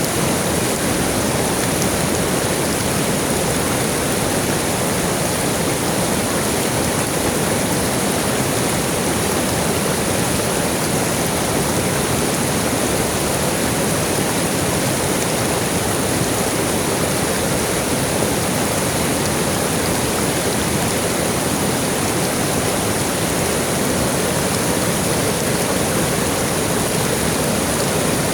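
River water flowing steadily over stones, an even rushing with no breaks, plus a steady high hiss above it.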